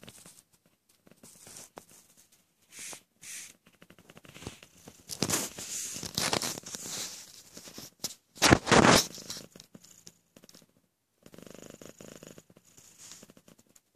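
Domestic cat purring while dozing, a steady pulsing purr that is plainest near the end. Midway it is broken by two loud bursts of rustling, the second the louder.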